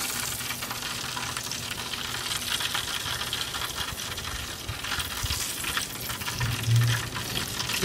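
Charcoal fire sizzling and crackling steadily as fat drips from a rotisserie prime rib onto the hot coals, with a low steady hum underneath.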